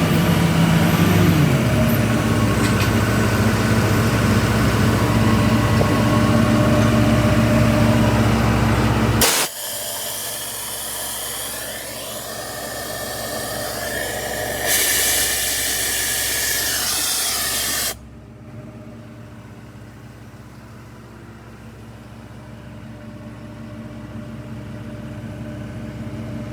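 Cummins diesel engine of a Doosan 750 CFM trailer-mounted air compressor running loaded, with compressed air hissing out. About nine seconds in the sound drops suddenly to a hissier, lower rush that swells again, then at about eighteen seconds drops to a quieter, steady engine run.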